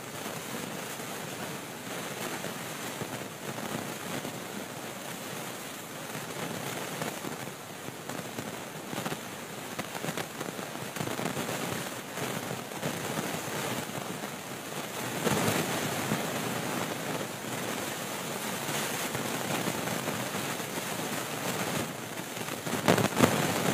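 Heavy storm rain pouring down, a steady dense hiss crackling with drops striking hard surfaces. It swells louder for a moment about two-thirds of the way through.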